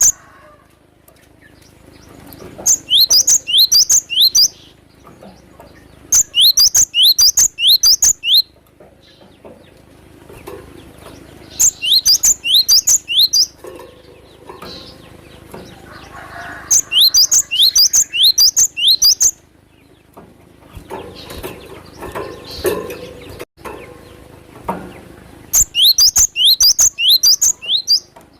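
Cinereous tit (gelatik batu) singing: five loud phrases of about two seconds each, every few seconds, each a quick run of sharp, high whistled notes, with quieter outdoor background between them.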